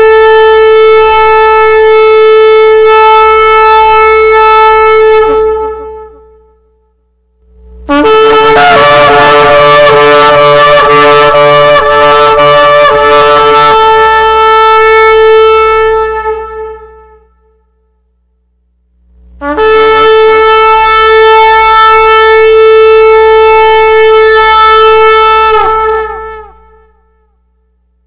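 Shofar blown in three long held blasts, each at a steady pitch, swelling in and tailing off over six to eight seconds, with short silences between. The first is already sounding at the start, the second comes about eight seconds in and is rougher and wavering in its first half, and the third comes about nineteen seconds in.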